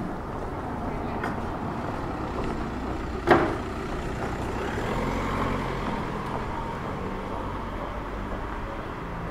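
A motor vehicle's engine running close by, a steady low rumble, with one sharp knock about three seconds in.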